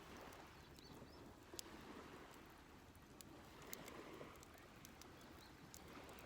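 Faint, scattered crackles and pops from a campfire over a low, steady background hiss.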